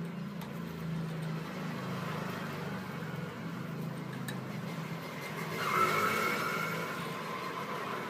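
Road vehicle noise: a steady low engine hum, swelling as a vehicle passes about six seconds in.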